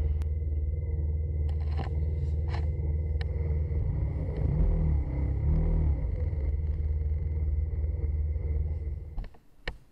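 Motorcycle engine running at a low idle, heard as a deep steady rumble through the rider's helmet camera, with a few short clicks in the first few seconds. The sound cuts off abruptly about 9 seconds in.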